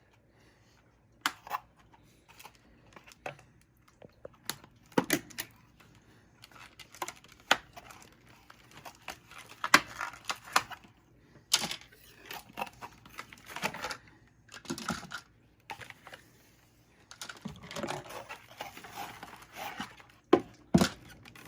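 Plastic wrapping around board-game pieces being torn open and crinkled, mixed with irregular sharp clicks and taps of small plastic parts being handled.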